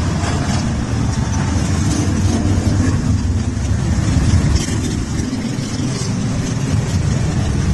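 Many motorcycle engines running together in a large group ride, a steady low drone with no letup.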